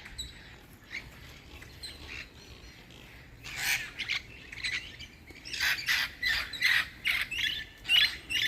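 Wild green parrots calling: a few faint calls at first, then loud squawks from about three and a half seconds in, coming in a quick run of many calls near the end.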